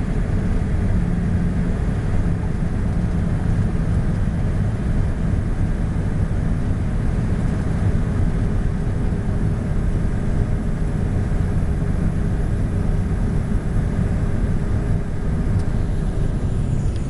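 Steady engine and airflow drone of a Gulfstream IV business jet, heard from inside the cabin on its landing approach, with a low steady hum under it. A faint high whine slides down in pitch near the end.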